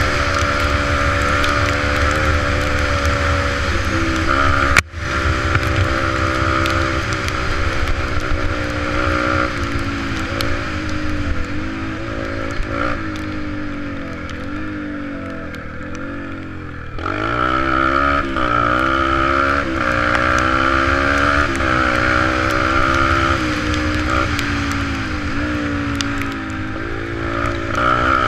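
Yamaha 125 dirt bike engine running under way at speed. One sharp knock about five seconds in; past the middle the engine eases off and its pitch wavers lower, then it picks up suddenly and climbs again about two-thirds of the way through.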